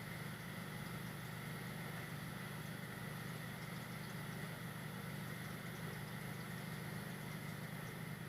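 Hampton Bay Callaway 2 five-blade ceiling fan running on low speed: a steady, low motor hum with a faint higher whine.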